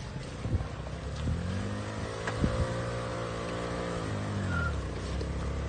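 Scooter engine revving under load as the four-wheeled scooter climbs a rocky slope: the revs rise and hold, drop back about four seconds in and pick up again near the end. A few sharp knocks sound over it.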